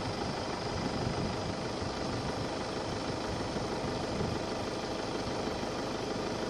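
Vehicle engine idling, a steady even rumble with no change.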